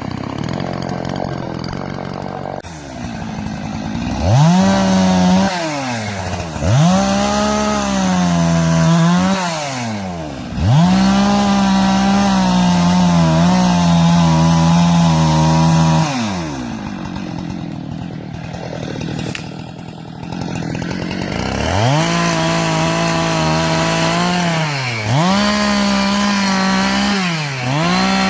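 Two-stroke chainsaw cutting small pine: it revs to full throttle, the pitch sags as the chain bites into the wood and climbs again as it frees up, over and over. In the middle it drops back to a lower, quieter run for several seconds before revving into the cut again.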